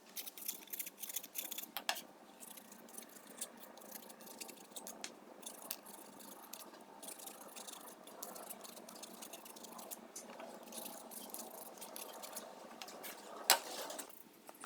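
Light, irregular clicks and taps of hard plastic PVC pipe and fittings being handled, with one sharp click near the end.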